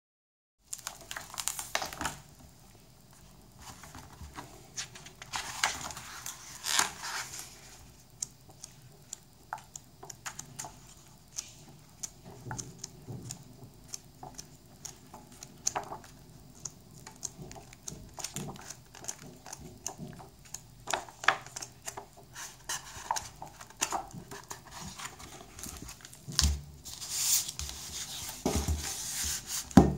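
Paper book being handled: pages turning and flipping, with paper rustles and many small taps and clicks. There are longer flurries of rustling a couple of times, and a few soft knocks near the end as the book is turned over and set down, the last one the loudest.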